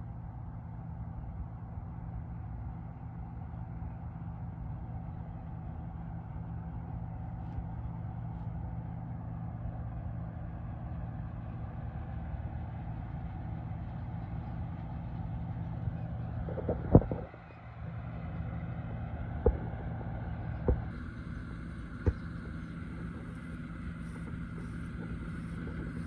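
John Deere combine harvester running while cutting wheat, a steady low engine drone, with four short sharp knocks about two-thirds of the way through.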